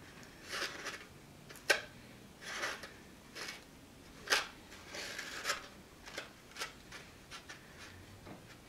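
White plastic fork scraping and rubbing through apple pie in a styrofoam takeout clamshell, in short strokes of a fraction of a second each, with a few sharp clicks where the fork knocks against the box; the loudest clicks come near two seconds and four seconds in.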